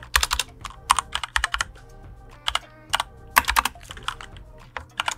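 Computer keyboard typing: quick runs of sharp keystroke clicks with short pauses between them.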